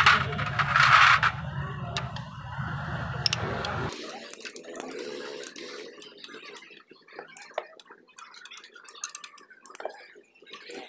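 Ratchet wrench with an 8 mm socket clicking, with light metal tool clinks, as the bolts of a motorcycle's clutch cover are loosened: scattered sharp clicks. Two short loud bursts of hiss come in the first second or so, and a steady low hum stops about four seconds in.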